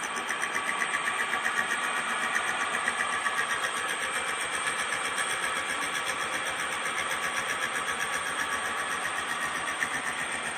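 Milling machine cutting bevel gear teeth: a steady machine drone with a fast, even pulsing rhythm and steady high tones over it.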